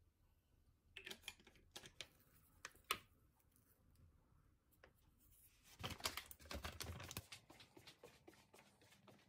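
Faint sharp clicks and taps from handling kitchen things at a table: a few separate clicks in the first three seconds, then a denser clatter of tapping and rustling from about six seconds in.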